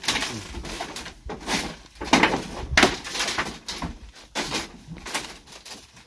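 Irregular knocking, creaking and rustling of bamboo: people stepping on a slatted bamboo floor and a bamboo door panel being moved in its doorway.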